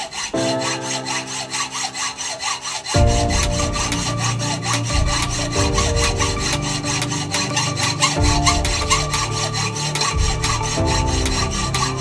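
Hand hacksaw cutting through a steel engine-mount bracket held in a bench vice, with repeated back-and-forth rasping strokes. Electronic background music plays throughout, with a heavier beat coming in about three seconds in.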